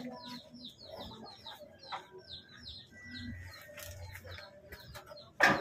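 Small birds chirping rapidly in a steady run of short, high, falling chirps, several a second, with lower fowl-like calls beneath. A short loud sound comes near the end.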